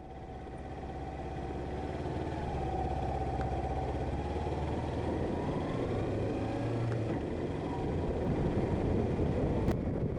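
Motorcycle engine running under way, fading in at the start, with a whine that rises in pitch in the middle. Wind noise on the microphone grows toward the end.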